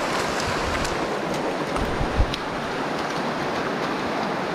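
Shallow creek water running over rocks, a steady rush, with a brief low thump about two seconds in.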